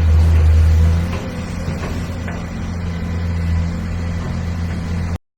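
Engine running steadily with a low drone, louder for about the first second and then settling lower, with a few faint ticks; the sound cuts off suddenly near the end.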